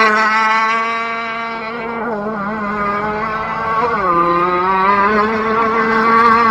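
Small two-stroke gas engine of an RC boat running out on the water, a steady buzzing note. The pitch sags about two seconds in, dips again near four seconds, then rises back to speed.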